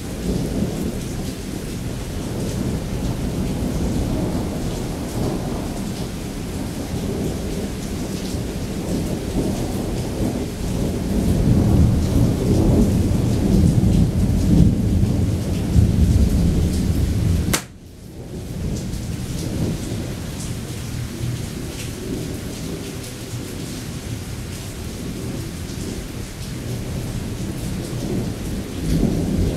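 Thunder rumbling almost without pause over heavy rain, loudest about twelve to seventeen seconds in. About eighteen seconds in there is a sharp click and a brief drop in level, then the rumble and rain carry on more quietly.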